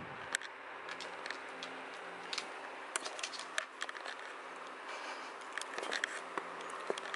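A dachshund jumping and scrabbling on a wooden floor while it plays for a stick toy: scattered light clicks and taps at irregular intervals, over a faint steady room hum.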